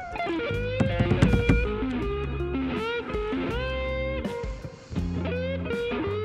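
Instrumental guitar music: an electric guitar playing a melodic lead with bent notes over sustained bass notes, easing off briefly a little before the fifth second.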